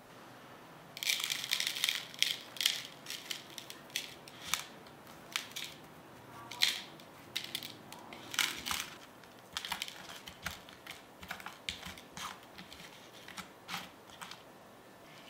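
Cornstarch being rubbed by hand over a scored raw potato in a glass bowl: dry crunching and squeaking of the packed starch in irregular runs of short crackles, starting about a second in and stopping shortly before the end.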